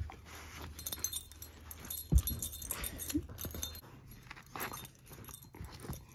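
Dog chewing and tugging at a fabric plush toy: irregular gnawing, rustling and tearing of the cloth, with the metal tags on her collar jingling. There is one sharp thump about two seconds in.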